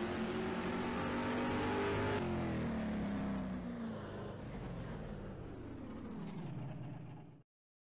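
Engine running with a steady pitch, then slowing, its pitch sinking from about two seconds in; it stops abruptly near the end.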